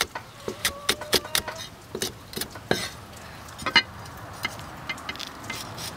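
Cleaver chopping green chillies on a thick wooden chopping block: quick, irregular knocks of the blade striking the wood, thinning out after about four seconds.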